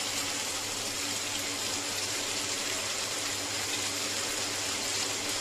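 Ginger, scallion and oysters sizzling in a claypot over a gas flame: a steady hiss as the sauce cooks down, with a low steady hum underneath.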